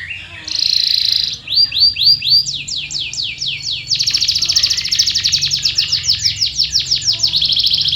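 Canary singing a rolling song of repeated phrases: a short held high note, a run of quick slurred notes at several a second, then about halfway through a very fast, continuous trill.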